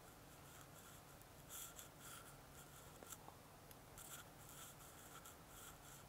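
Near silence with faint, short scratchy rustles at irregular intervals and a couple of tiny clicks about three seconds in.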